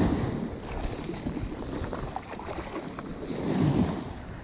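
Ocean surf washing up a sandy beach, with wind on the microphone; the wash swells again about three and a half seconds in.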